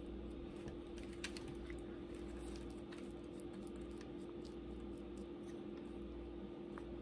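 Faint, scattered light clicks and taps from a paintbrush and a ceramic mug being handled, over a steady low hum.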